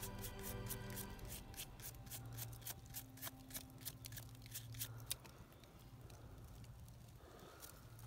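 A toothbrush scrubbing soil off a dug-up metal belt buckle in quick scratchy strokes, fading out after about five seconds, over a low droning music bed.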